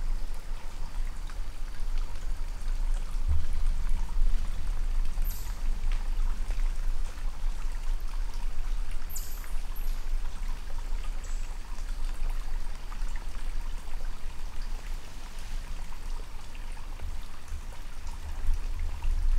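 Steady outdoor rushing noise with uneven low rumbling, and a few short, high, falling chirps about five and nine seconds in.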